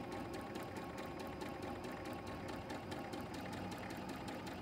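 Domestic electric sewing machine stitching steadily, a fast even run of needle strokes over the motor's hum, sewing fabric onto foundation paper at a short stitch length that perforates the paper closely.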